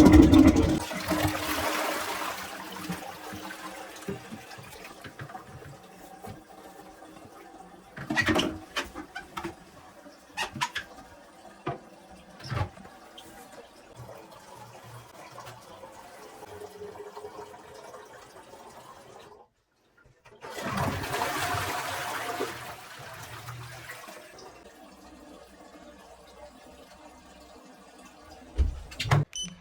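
Toilet flushing: a rush of water that fades over a couple of seconds, then a second flush later on, with a few knocks in between.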